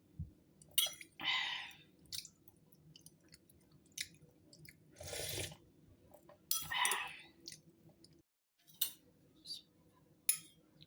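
A person eating, with chewing and mouth noises in short bursts and a few small sharp clicks.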